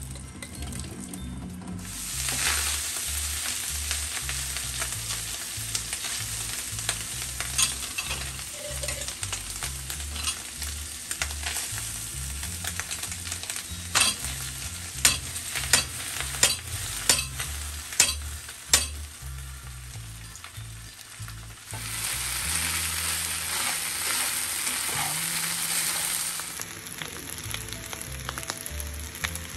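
Minced meat, frozen vegetables and boiled pasta sizzling in a frying pan, starting about two seconds in, while a slotted spatula stirs them. In the middle comes a run of sharp clicks as the spatula knocks against the pan, and the sizzle grows louder again near the end.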